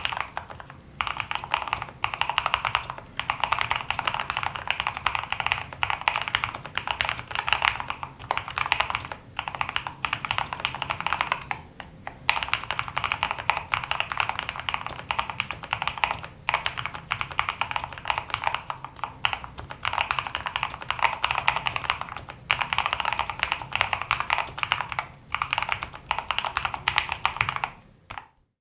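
Continuous fast typing on an E-Yooso K600 mechanical keyboard with lubed linear red switches and stabilizers, MT3 keycaps and a foam-damped, weighted plastic case, in runs broken by brief pauses. It stops abruptly near the end.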